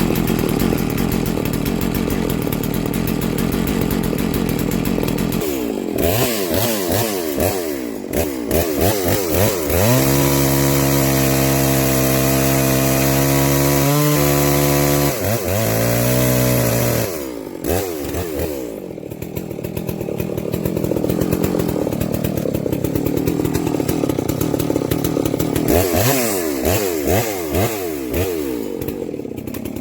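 Farmertech G660 two-stroke chainsaw on its first run, revved up and down several times, then held at high revs at a steady pitch for about five seconds. It then drops back to lower revs and is blipped again near the end.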